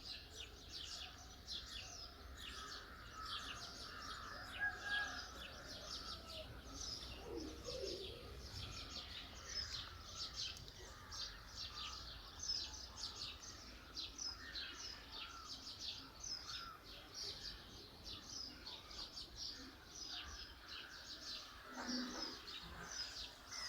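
Many small birds chirping, a dense run of short high notes that goes on without a break, over a faint steady low rumble.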